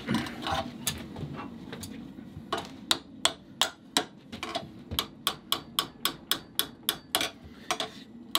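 Hand hammer striking a red-hot steel bar clamped in a bench vise, bending it into a trace hook. A few scattered blows at first, then a steady run of about three blows a second from about halfway.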